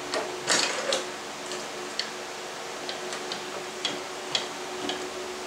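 Scattered light clicks and taps of tools and workpieces being handled on a shop table, with a short scraping rasp about half a second in.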